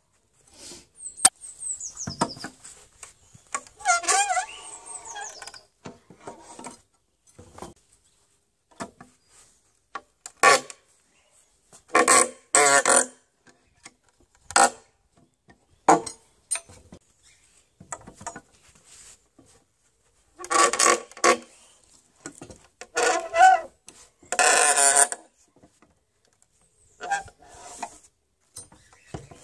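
A steel cat's-paw nail puller being worked into a wooden beam to pull nails: sharp metal-on-wood knocks at irregular intervals, with nails squealing as they are drawn out of the wood, about four seconds in and again near twenty-four seconds.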